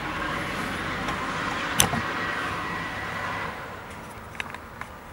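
A steady rushing noise that fades away over about three and a half seconds, with one sharp click a little under two seconds in and a couple of faint taps near the end.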